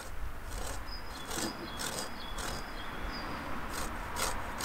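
Lime zest being grated on a metal box grater: a run of short, high, rasping scrapes at an uneven pace, a few strokes a second.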